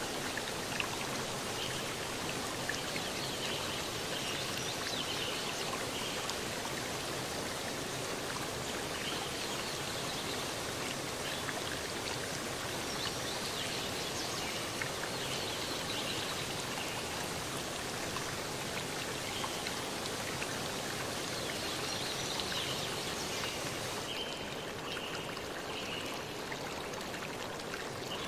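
A steady, even rushing noise like running water, with no speech or music; it turns a little duller near the end.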